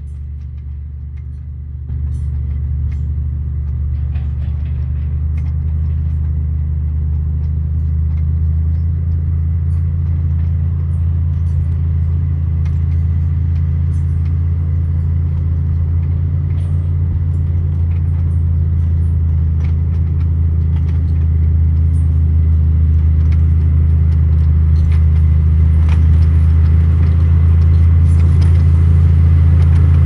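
Komatsu motor grader's diesel engine running under load as it drives closer, growing steadily louder, with a step up in loudness about two seconds in. Its blade pushing through rocky soil adds scattered clatter of stones over the engine.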